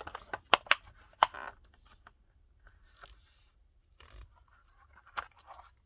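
Sealed Hot Wheels blister card being handled: the plastic blister and cardboard backing crackle and click sharply, with rustling in between. The loudest clicks come about half a second to a second in and again near the end.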